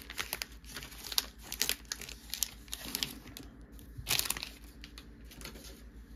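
Foil wrapper of a Pokémon booster pack crinkling and tearing in the hands as the pack is opened, a run of short crackles with a louder burst about four seconds in, then quieter.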